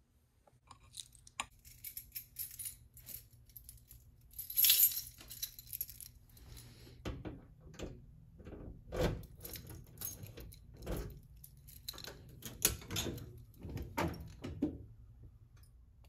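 A bunch of keys jangling and rattling, loudest about five seconds in. Then come a run of clicks and knocks as a key is worked in the lock of a metal electrical panel door and the door is opened.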